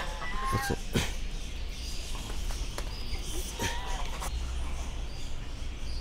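Backyard poultry giving a few short calls: a couple in the first second and one more past three and a half seconds, with a couple of light knocks.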